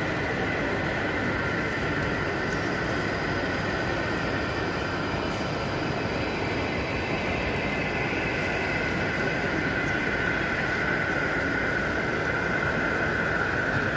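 Model railway train running on a layout: a steady running noise with a constant high whine that grows a little louder near the end.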